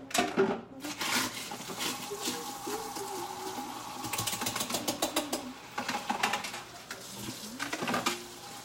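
Dishes clinking and water running in a kitchen sink as a mixing bowl is washed by hand, with irregular knocks and clatter throughout.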